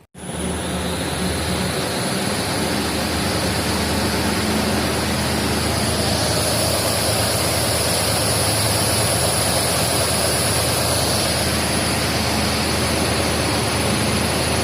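Large bladed radiator cooling fan spinning at speed on a balancing machine: a steady rush of moving air with a low hum and a thin high whine, starting abruptly. The fan is balanced to about 0.1 g residual imbalance, within tolerance.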